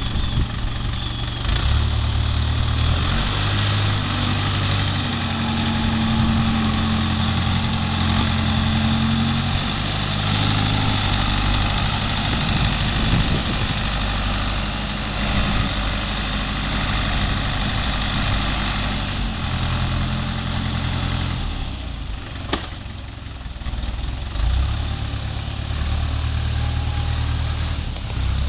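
Case 530 Construction King backhoe's engine running, its pitch stepping up and down several times as the machine works. The engine eases off for a couple of seconds about three-quarters of the way through, with a single sharp knock, then comes back up.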